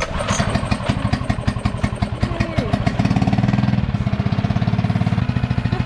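Yamaha outboard motor running with a fast, even putter, getting a little louder about three seconds in.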